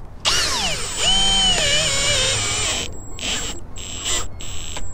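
Cordless drill drilling a new hole through the sheet-metal seam of a metal roof. The motor whine drops in pitch as the bit bites, holds with a wavering pitch for about two seconds, then stops and gives way to a few short trigger bursts.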